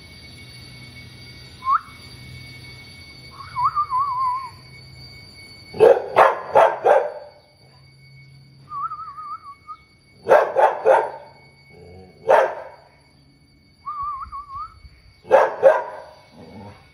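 White Labrador retriever alternating wavering, warbling whines with short volleys of barks, several barks in quick succession each time, vocalizing back at her owner as if in conversation.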